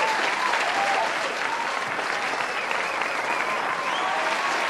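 A crowd applauding steadily, with voices cheering and calling out over the clapping.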